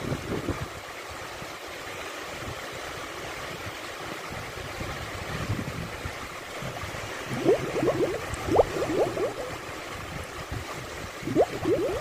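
Small waves washing in over a shallow, flat sandy beach: a steady wash, with bursts of gurgling and bubbling water in the second half and again near the end.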